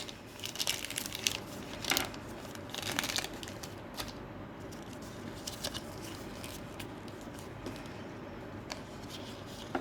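Plastic packaging crinkling and rustling in short bursts as it is handled and opened, mostly in the first few seconds, then only a few faint clicks.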